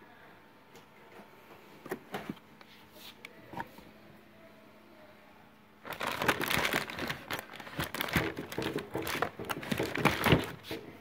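Clear plastic packaging crinkling and rustling as a hand handles the wrapped torch cable, starting about six seconds in after a few faint clicks.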